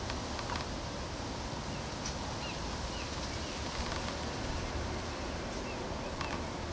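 Steady outdoor background noise with a few short, faint bird chirps around the middle and scattered faint clicks toward the end.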